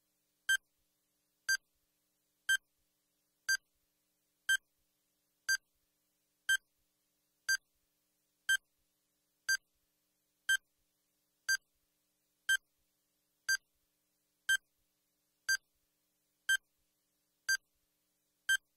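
Countdown timer ticking down: a short electronic beep once every second, evenly spaced, with silence between the beeps.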